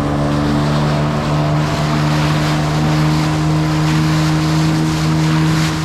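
Boat's outboard motor running steadily at speed, its pitch holding level, over a rush of wind and water.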